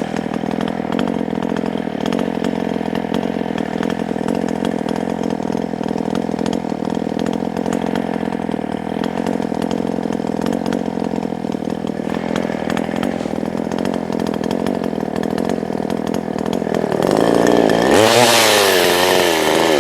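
Small gas chainsaw running steadily at high revs. Near the end the engine surges unevenly up and down as it runs out of fuel.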